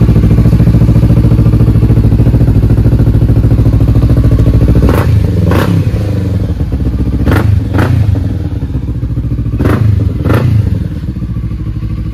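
Kawasaki Ninja 650's parallel-twin engine idling steadily just after being started, then given three pairs of quick throttle blips, each pair about two seconds after the last, in the second half.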